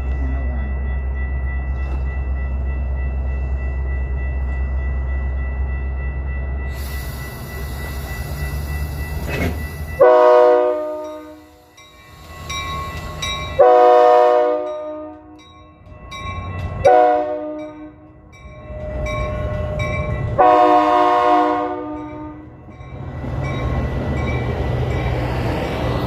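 Metra SD70MACH diesel locomotive idling with a low rumble, a hiss of air about seven seconds in, then its air horn sounding four blasts, long, long, short, long, each loud at the start and fading. The diesel's rumble builds again near the end as the train pulls away.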